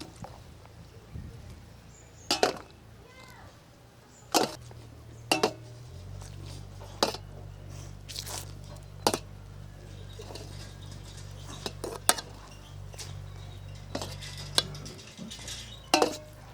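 Kitchenware clinking and knocking, about ten sharp, irregular clinks as it is handled. A faint steady low hum starts about six seconds in and stops about a second before the end.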